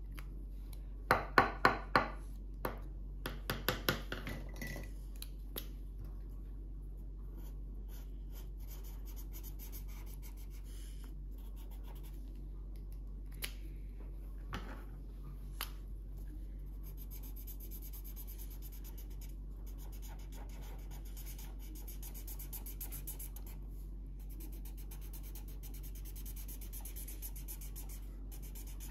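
Felt-tip marker and coloured pencil scratching on paper as a drawing is coloured in by hand. A run of sharp clicks and taps comes about a second in, and a few fainter ones follow midway.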